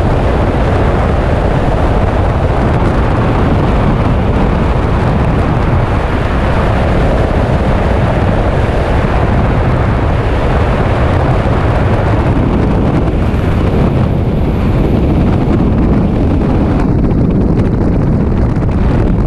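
Freefall wind rushing over a helmet-mounted camera's microphone: a loud, steady rush of noise.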